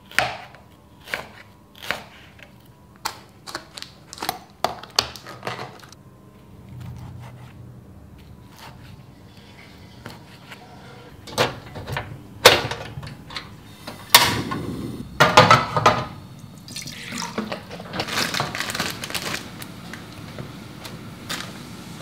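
Kitchen knife chopping spring onions on a plastic cutting board, a run of irregular strokes over the first six seconds. Later come sharp clicks and clatter as a portable gas stove is lit, then a steady hiss.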